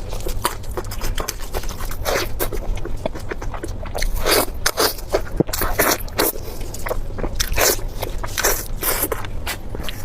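Close-miked eating sounds: a person biting and chewing food in a quick, irregular run of short mouth noises.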